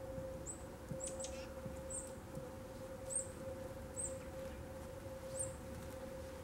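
A small songbird giving short, very high-pitched chips, roughly one a second, over a steady faint hum.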